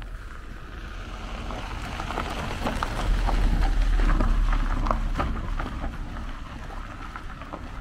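A Renault Sandero Stepway passing close at low speed on a dirt road, its tyres crunching and crackling over grit and gravel over a low engine hum. It swells to its loudest about three to five seconds in, then fades as the car pulls away up the road.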